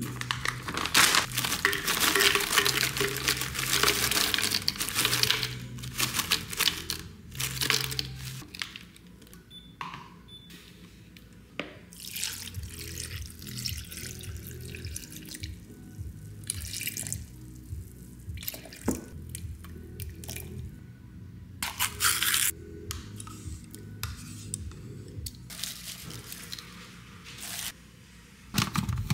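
Frozen fruit pieces tipped from a bag and clattering into a plastic blender cup for a few seconds, followed later by orange juice poured in with a splashing trickle and more ingredients dropped in. Background music plays underneath.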